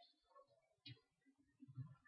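Near silence, with a faint click about a second in and a soft low sound near the end.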